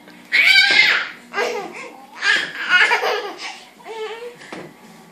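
A baby laughing in several high-pitched bursts, mixed with an adult man's laughter.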